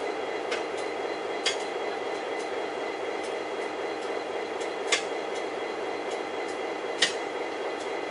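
Heavy engineering machinery running with a steady drone, broken by four sharp knocks, the loudest about five and seven seconds in.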